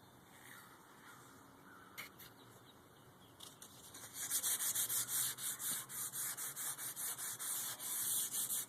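Sandpaper rubbed back and forth along a wooden axe handle, stripping off the factory varnish. After a faint start with a single click about two seconds in, rapid scratchy strokes begin, about four a second.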